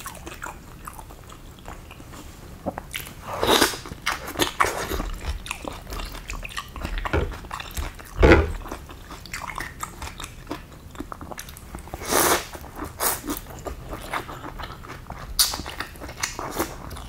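Close-up eating of bakso meatball soup: chewing and slurping, with scattered clicks of a metal spoon and fork in the bowl and several louder slurps or bites spread through.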